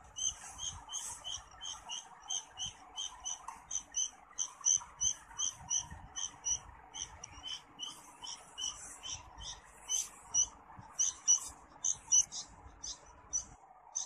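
Bulbul nestling begging: short, high chirps repeated about three times a second, stopping just before the end.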